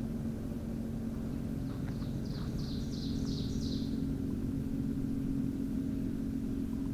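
Steady, even hum of a motorboat engine, with a short bird song of about six quick high notes about two seconds in.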